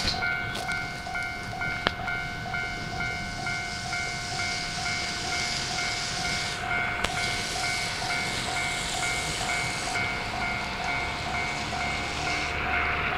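Japanese railway level-crossing warning bell ringing in a steady, rapid on-off pattern, over a hiss of train and rail noise. A couple of sharp single clicks.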